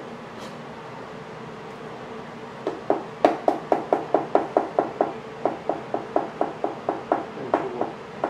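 Kitchen knife slicing fresh shiitake mushroom caps on a cutting board: a quick, even run of knocks, about four or five a second, starting almost three seconds in with a short break partway through.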